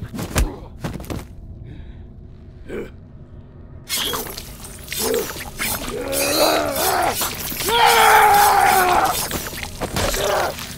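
Movie fight sound effects: two sharp hits in the first second, then from about four seconds a dense run of slashing and impact noises under a man's yells, the longest yell held about eight to nine seconds in.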